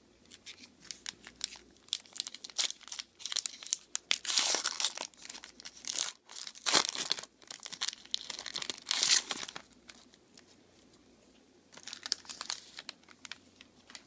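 Foil wrapper of a Bowman Sterling football card pack crinkling in the hands and being torn open: a long run of crackles and rips, loudest about four and nine seconds in, then a shorter bout of crinkling near the end.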